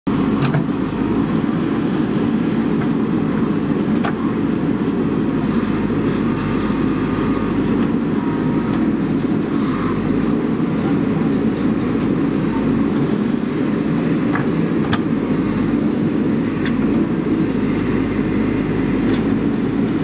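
JCB 3DX backhoe loader's diesel engine running steadily while the backhoe arm digs soil, with a few short clicks.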